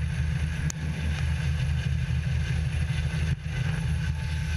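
Heavy, steady low rumble from a military helicopter hovering close overhead and a lifeboat's engines running at speed, with wind buffeting the microphone.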